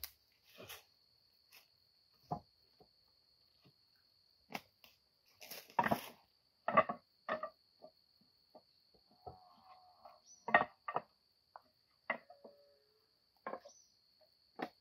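Irregular knocks and clatters of wood being handled and struck, a dozen or so, some loud and sharp. A faint steady high insect drone runs under them.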